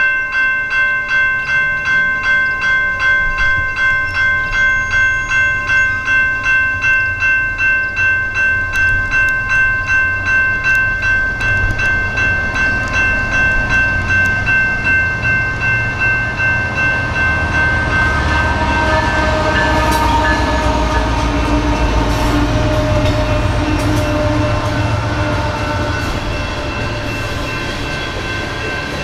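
General Signal Type 2 electronic railroad-crossing bell ringing at about two strikes a second. From about twelve seconds in, a passing train's rumble and wheel clicks build up until they largely cover the bell.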